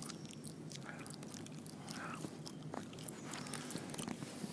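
Faint, irregular clicks and crackles over a steady low hum.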